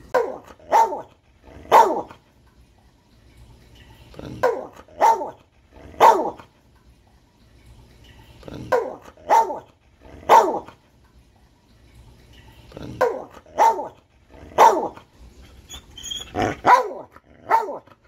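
A brindle bulldog-type dog barking in bouts of three barks, a bout about every four seconds.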